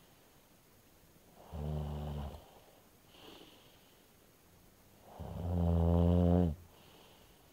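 Snoring: two long, rasping snores, a weaker one about one and a half seconds in and a louder one about five seconds in, with a faint breath out between them.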